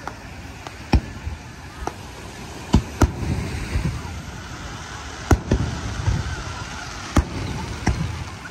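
Aerial firework shells bursting overhead: a run of sharp bangs at irregular intervals, a second or so apart, the loudest about three and five seconds in, over a low rumble of echoing booms.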